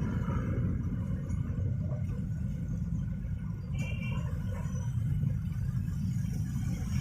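Steady low rumble of a passing train, with a brief high tone about four seconds in.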